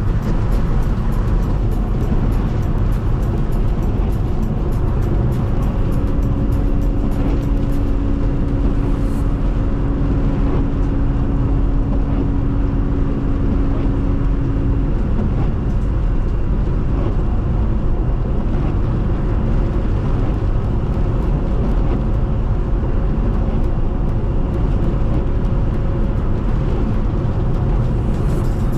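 Steady road and engine noise inside a moving car on a snow-covered road, with many light ticks of snow and ice hitting the vehicle. A steady hum holds for several seconds in the middle.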